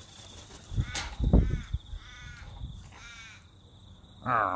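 Wild cockatoos calling, several short calls one after another, with a louder call near the end. A few heavy low thuds about a second in.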